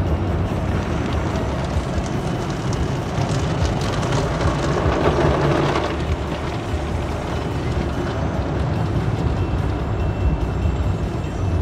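Automatic car wash heard from inside the car's cabin: cloth brush strips and water sprays swishing and splashing over the windshield and body over a steady low rumble of the wash machinery. The spray gets louder and brighter about three seconds in, easing off again around six seconds.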